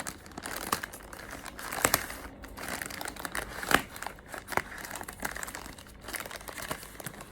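Shipping packaging being handled and opened by hand: irregular crinkling and tearing with sharp snaps, the loudest about two seconds in and again just before four seconds.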